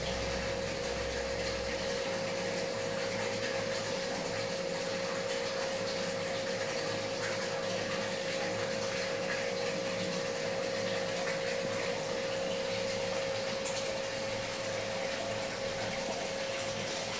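Steady rush of water from an aquarium's filtration system, with a steady hum running under it.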